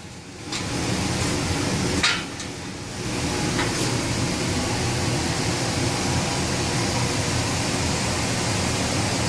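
Steady rush of air blowing from an electric furnace's blower running in cooling mode, dipping briefly around two seconds in, with a light knock just then.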